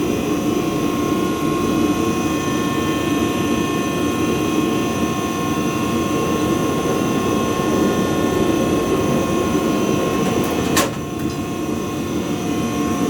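Gas forge burner running with a steady roar and a constant whine. A single sharp click sounds near the end.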